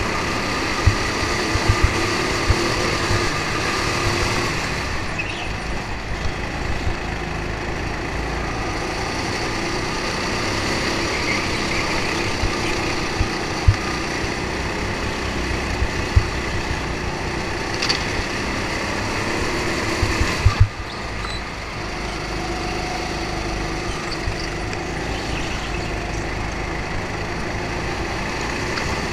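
Go-kart engine running hard as the kart laps the track, heard on board: a steady drone over a heavy low rumble, with scattered short knocks. The engine note drops briefly about two-thirds of the way through, as if the throttle is lifted, then picks up again.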